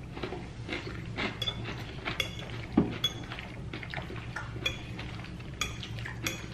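Fork and plate clinking and scraping while eating a salad: many short, light taps, a few each second, over a steady low hum.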